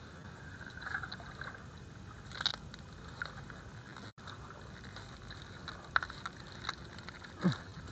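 Faint wet rustling and light splashing of a person wading in shallow pond water and pushing through reed stems. A few sharper ticks and splashes come through, the loudest a short low sound falling in pitch near the end.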